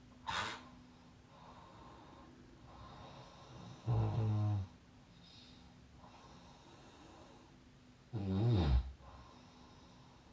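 A sleeping person snoring: two loud, low snores about four seconds apart, with a short breathy puff near the start and faint breathing in between.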